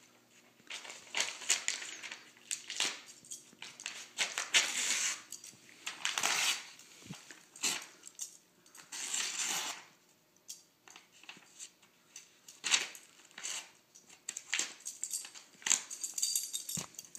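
A greyhound pawing and clawing at a sheet of printer paper and tearing it, with crinkling, rustling and ripping in uneven bursts of a second or so, separated by short pauses.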